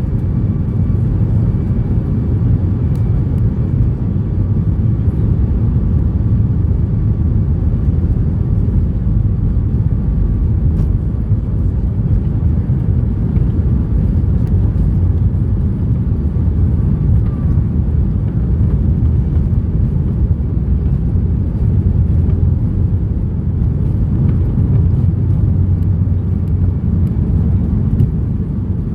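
Cabin noise aboard a Boeing 737 with its jet engines running: a steady low rumble with a faint high whine.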